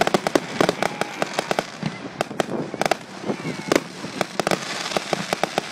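Aerial fireworks display: a rapid, irregular volley of sharp cracks and bangs from bursting shells, several a second, heavy in the high end through a phone microphone.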